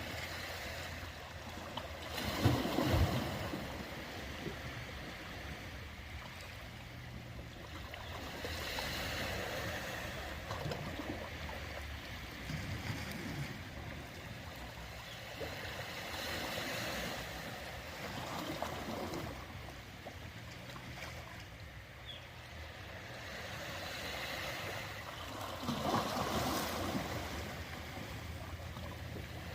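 Ocean waves washing in, the surf swelling and fading every few seconds. The loudest surges come about three seconds in and near the end.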